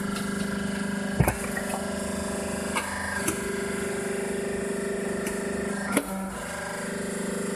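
A homemade firewood processor's motor running with a steady hum while wooden log rounds knock against the machine, with the loudest knocks about a second in and again near six seconds.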